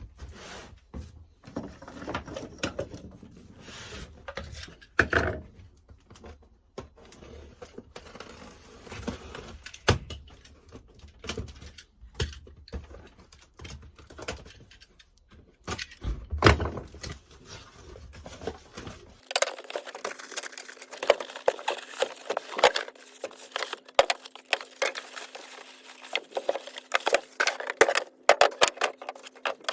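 Unpacking and handling a benchtop drill press and its loose parts: irregular clinks, knocks and rustling of packaging, with small metal pieces jangling. About two-thirds of the way through the sound changes and a faint steady hum comes in underneath.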